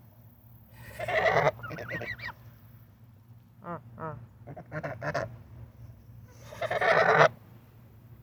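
Domestic geese honking: a loud honk about a second in and another near the end, with shorter, softer calls in between.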